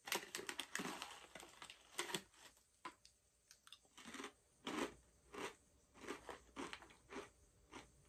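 Crab-flavored potato chips being bitten and chewed: a dense crackle of crunching in the first second or so, then separate crunches about one and a half times a second.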